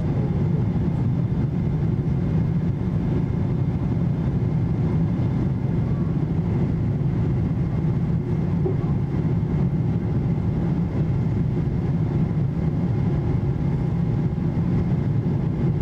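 Steady cabin noise of a Boeing 777-200 in flight during the climb after takeoff: a deep rumble of jet engines and airflow with faint steady whining tones above it.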